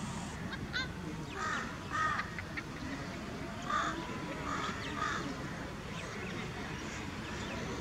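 Crows cawing: about five short calls, a pair near the start, one a little before the middle and two more just after it, over a steady low outdoor background.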